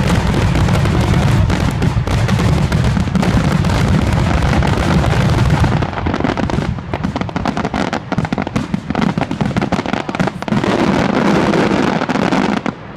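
Aerial fireworks going off in a dense, rapid barrage of booms and crackles for about six seconds, then thinning to scattered separate bangs that stop just before the end.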